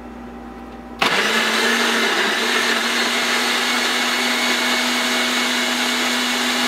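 Personal bullet-style blender switched on about a second in and running steadily at full speed, pureeing a green smoothie of fruit, vegetables and water. Its motor note dips briefly just after starting, then holds steady.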